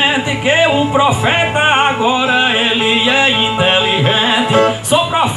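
Two resonator violas (steel-string guitars) playing a northeastern toada, with a man's singing voice over them.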